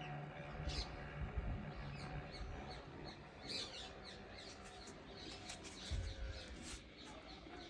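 Faint, scattered short high chirps, with a few dull low thumps about a second in and again near six seconds.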